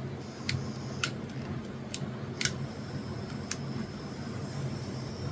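Gas torch's piezo igniter clicking about six times, sharp and quick, with a faint steady high hiss of the lit flame coming in near the start and again about halfway through, over a steady low hum.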